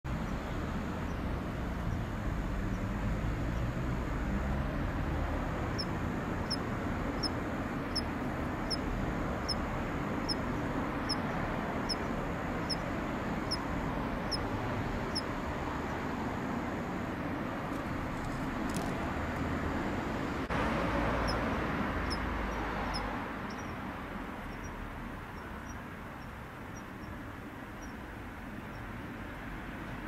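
A kanetataki cricket (Ornebius kanetataki) singing: a regular run of short, high, metallic ticks, about one every 0.7 seconds, that pauses for several seconds midway and comes back fainter near the end. This is a feeble late-autumn song, weakened by the falling temperature as the singing season ends. A steady low rumble runs underneath.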